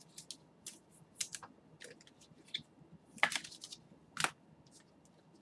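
Computer keyboard being typed on: faint, irregular light clicks, with a quick run of louder clicks about three seconds in and one sharp click just after.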